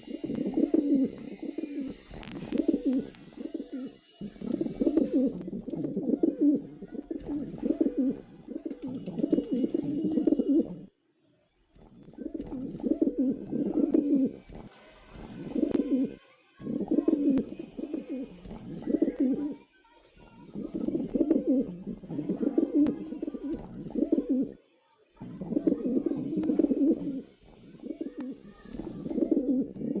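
Pigeons cooing: low coos repeating in runs of several seconds, with short pauses between the runs.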